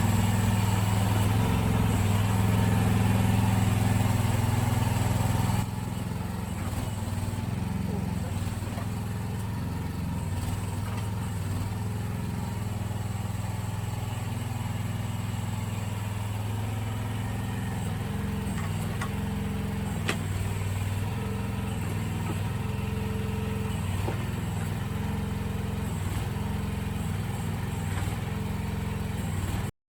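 Mini excavator's small engine running steadily, its pitch shifting up and down in steps as the hydraulics take and release load while digging and moving dirt. It drops in loudness about six seconds in.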